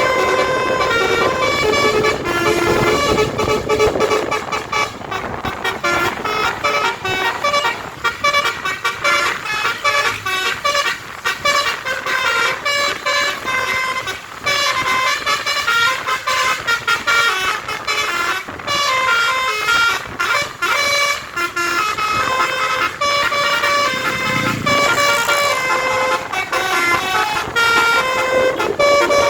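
A bus's basuri musical air horn playing a tune: a long run of short horn notes stepping up and down in pitch, over road noise.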